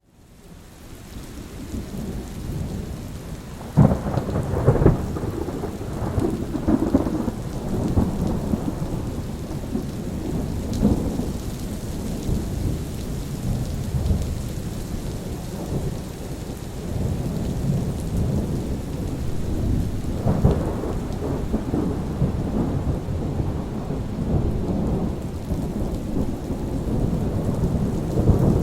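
Thunderstorm: steady rain under rolling thunder. The sound swells up from near silence over the first three seconds. A sharp thunderclap comes about four seconds in and another loud peal about twenty seconds in, with rumbling throughout.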